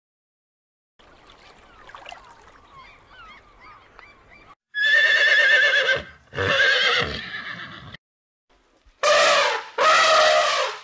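Equid whinnying: after a few seconds of faint background with small chirps, two wavering whinnies come about halfway through, and two more loud calls with falling pitch come near the end.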